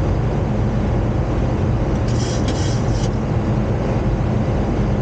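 Steady low drone of engines and airflow inside a Boeing 737 cockpit on approach, with a short hiss about two seconds in.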